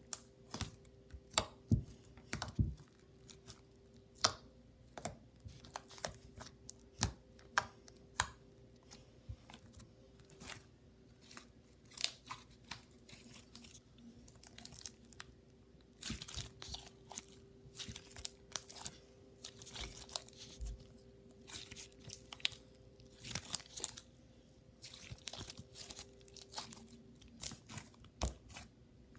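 Pink slime being squeezed, kneaded and pressed flat by hand on a hard countertop, giving irregular sharp pops, clicks and crackly squelches as air pockets burst. The crackling comes in thicker runs from a little past halfway.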